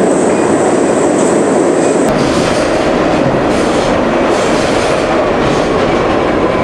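Subway train in motion, heard from inside the car: a loud, steady rumble and clatter of the moving car, growing somewhat heavier about two seconds in.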